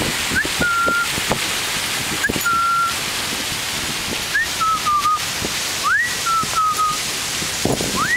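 A person whistling to call a puppy: about five short phrases, each a quick rising whistle followed by a held note, repeated roughly every two seconds. A fountain splashes steadily underneath.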